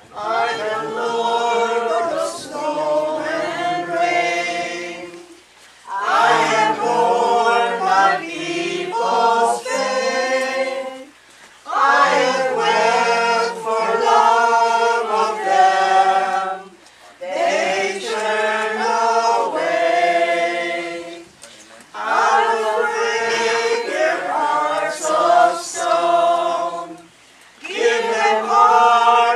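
A congregation singing a hymn together, unaccompanied. The hymn comes in phrases of about five seconds, each followed by a brief pause.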